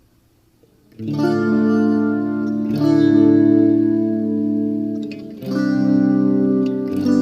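Electric guitar played through a Waldman Super Chorus Ensemble chorus pedal: strummed chords ringing out, struck about four times after a quiet first second.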